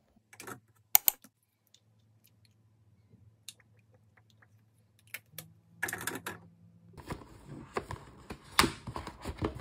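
Light clicks and taps of small objects being handled on a hard surface: a few separate sharp clicks at first, then a dense run of clicking and rustling from about seven seconds in.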